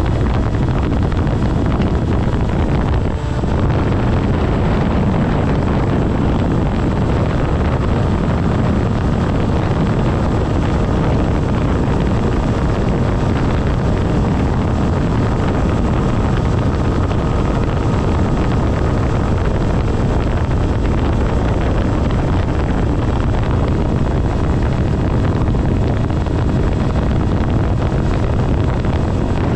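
Wind rushing over the microphone on a Volantex Ranger 1600 RC plane in flight, loud and steady, with the plane's electric motor and propeller running beneath it as a faint steady whine.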